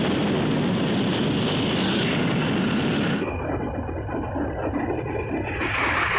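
Wind rushing over the microphone together with engine and road noise from riding a motorcycle along a highway. The sound changes abruptly about three seconds in, and a passing SUV swells briefly near the end.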